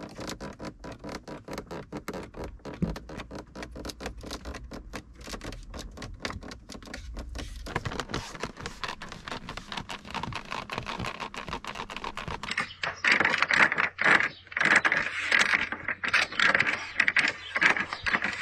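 Interior plastic trim and seat panels of a BMW X5 F15 creaking and crackling under a pressing hand: fast irregular clicks that grow louder and harsher about two-thirds of the way through. They are the creaks and squeaks of badly fitting trim that the owner complains of.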